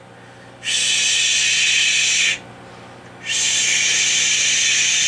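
A man's voice making two long 'shhh' hisses into the microphone to modulate the linear amplifier, each lasting about two seconds with a short gap between, over a faint steady hum.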